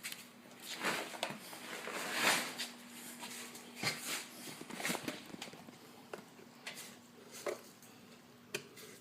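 Irregular scraping and rubbing with scattered light clicks and knocks: hand work with a screwdriver, easing the lip of a rubber intake boot over a motorcycle carburetor. The rubbing is loudest about one to two seconds in.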